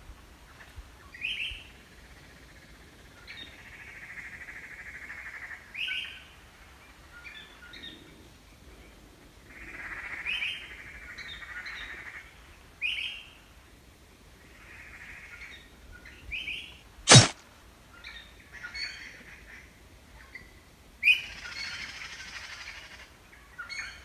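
Songbirds calling: short rising chirps every few seconds, several followed by a buzzy trill lasting a second or two. A single sharp click about seventeen seconds in is the loudest sound.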